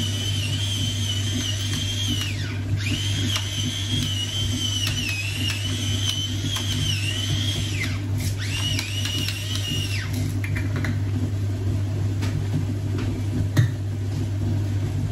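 Battery-powered electric pepper grinder running with a steady high whine in three runs, grinding black pepper; the last run stops about ten seconds in. A steady low hum runs underneath throughout.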